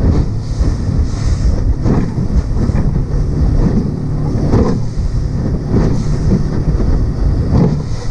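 Fast open boat running through choppy sea: heavy wind buffeting the microphone over the steady drone of the boat's engine, with the hull slapping waves and spray splashing in surges every second or two.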